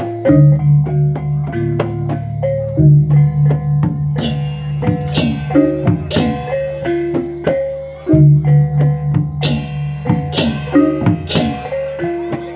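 Balinese baleganjur gamelan playing: low gongs ringing under a running melody of struck bronze pot gongs, with two groups of three loud cymbal crashes from the ceng-ceng.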